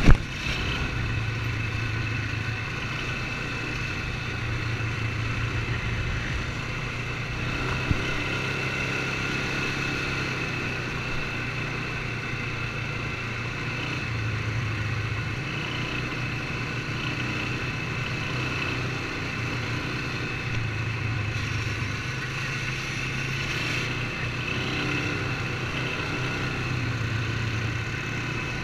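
Polaris ATV engine running steadily under way, a constant low drone with only small rises and falls in speed.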